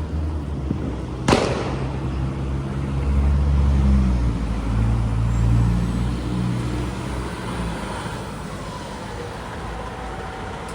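Heavy fire truck's diesel engine rumbling as the rig moves off. It grows louder about three to six seconds in, then fades. A single sharp crack sounds about a second in.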